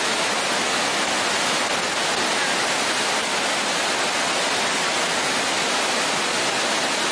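Whitewater rapids rushing steadily over and around boulders, a constant hiss of heavy water.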